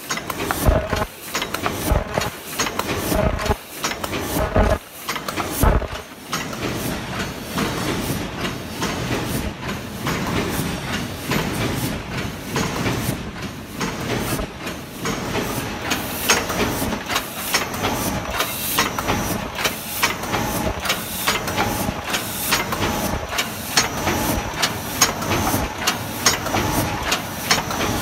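Ultrasonic-heater paper cup making machine running at about 50 cups a minute: a continuous mechanical clatter of rapid clicks and knocks over a steady hiss.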